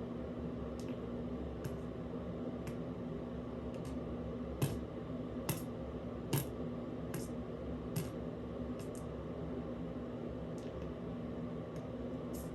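Steady low room hum with about fifteen short, faint clicks scattered through it, the three loudest coming around the middle.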